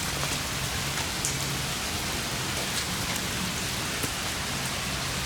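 Steady, even hiss of water: the creek running over and around the placed boulders, or rain falling, without a break.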